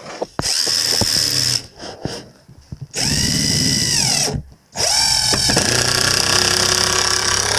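Cordless impact driver driving screws into a 2x4 wooden frame, in three runs. The first is short, in the middle one the pitch rises and falls as it spins up and down, and the last and longest runs until the end.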